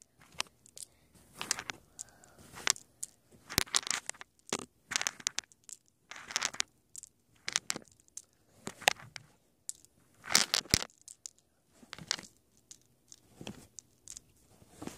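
A cardboard Hot Tamales candy box being handled and the candies shuffled and counted out of it: irregular bursts of rustling, crinkling and scraping.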